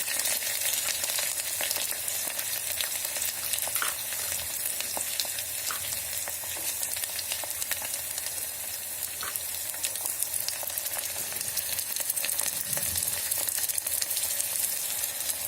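Chopped onions, green chili and capsicum sizzling in hot oil in a pan, a steady hiss full of small crackles.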